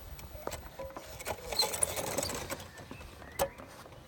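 A quad bike's tyre rolling over an object on concrete, with scattered clicks and a spell of crackling that starts about a second in and lasts about a second and a half, then one sharp click near the end.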